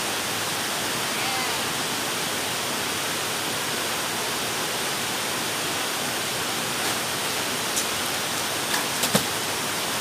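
Steady hiss of rain falling, with a few small knocks near the end.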